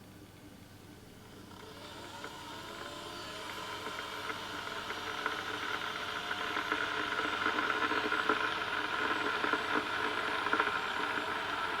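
Kettle heating water: a hiss with fine crackling starts about two seconds in and swells steadily louder as the water heats toward the boil.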